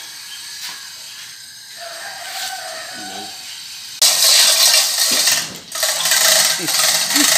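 Chain hoist's steel chain rattling and clanking as a heavy cast loader transmission housing is hoisted and swung; the loud metallic rattling starts abruptly about four seconds in and keeps going.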